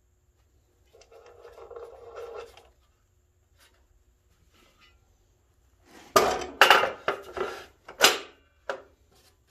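Metal clanking and scraping as steel tubing is set into a chop saw's vise and the vise is adjusted. A short rasping scrape comes about a second in, then a run of loud, sharp clanks from about six seconds.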